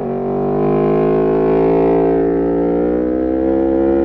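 Aprilia Tuono V4 Factory's V4 engine accelerating hard through an Arrow GP2 exhaust with the dB killer removed. A brief break at the start as a gear changes, then the engine note climbs steadily.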